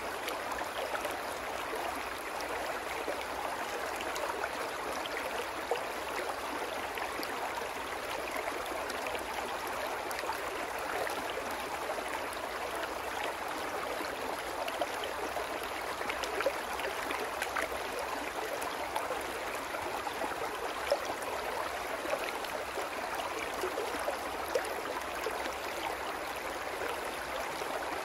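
Small, shallow brook babbling steadily over rocks and little cascades, with the odd brighter splash.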